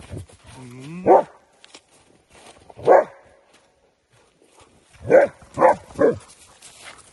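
A dog barking: a rising whine that breaks into a bark about a second in, a single bark near three seconds, then three quick barks in a row around five to six seconds.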